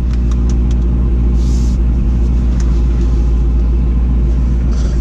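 The supercharged 6.0-litre LS2 V8 of a 2005 Corvette idling steadily. It is running after the fuel pump relay pin was pushed back up into the fuse box, which had caused the crank-but-no-start fault.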